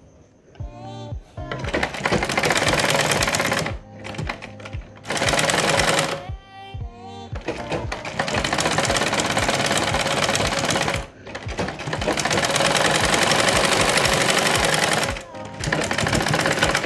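Domestic straight-stitch sewing machine stitching the seams of a cloth face mask: five runs of rapid clicking, each one to three seconds long, with short pauses between them as the fabric is turned.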